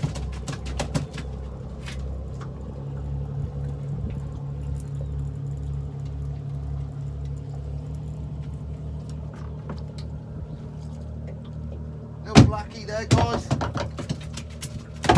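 Boat engine idling with a steady low hum. About twelve seconds in comes a loud knock, followed by a few seconds of irregular knocking and rattling.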